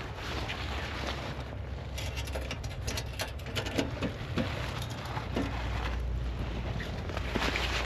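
Rustling of outdoor clothing with a run of clicks and knocks about two seconds in, as a sheet-metal wood-burning tent stove is gripped and lifted out of the snow. A steady low rumble sits underneath and grows louder about halfway through.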